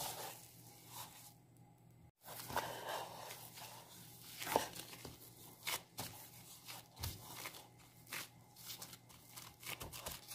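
Plastic-gloved hands kneading crumbly pie dough in a ceramic bowl: soft, irregular crinkling of the thin gloves and scraping of the dough against the bowl. The sound cuts out for an instant about two seconds in.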